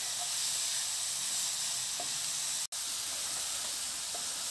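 Mushrooms and pepperoni sizzling in a frying pan over hot embers: a steady hiss with a few faint pops. The sound cuts out for an instant about two-thirds of the way through.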